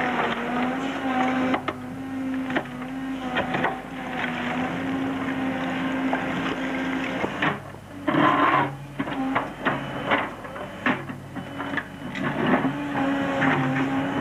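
Backhoe digging: its engine runs with a steady whine while the toothed bucket scrapes and knocks through stony soil. About halfway through the whine drops away as the bucket bites in with a loud scrape, and it comes back near the end.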